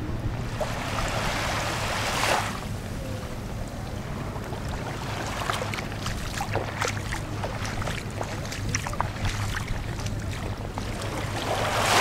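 Gentle waves washing up a sandy shore: one soft hissing surge that breaks off about two seconds in and another building near the end, with small scattered splashes and crackles of shallow water between them.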